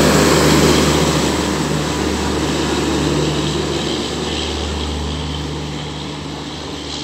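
Garib Rath express coaches running past at high speed: a loud rush and rumble of wheels on rail that fades steadily as the train moves away.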